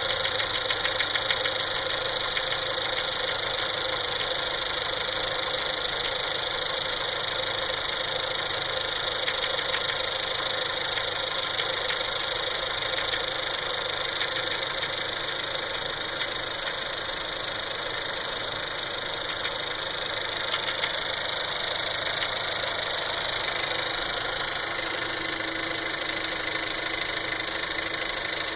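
Volkswagen Golf Mk7's 1.4 TSI turbocharged four-cylinder engine idling steadily, with the odd noise that the owner takes for an engine fault.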